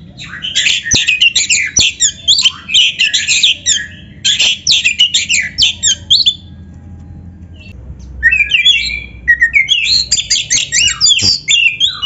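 Oriental magpie-robin (kacer) singing a fast, varied song of whistles and chirps. It breaks off for about two seconds midway, then starts again.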